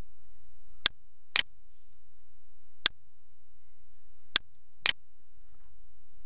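Computer mouse button clicking five times: a pair, a single, then another pair, over a low steady hum.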